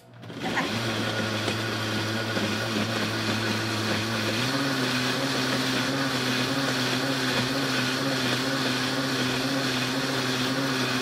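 Countertop blender starting up and running steadily, churning a liquid banana, date and coconut-milk pie filling. Its motor note steps up in pitch about four seconds in.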